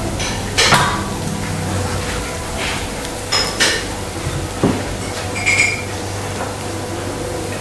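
Metal pans and utensils clinking and clanking a few times in a kitchen, one clink ringing briefly about five and a half seconds in, over a steady hiss of food frying in oil in a pan on a gas burner.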